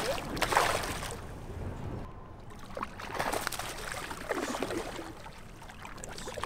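A hooked fish thrashing at the water's surface beside the boat, splashing in irregular fits, the loudest about half a second in.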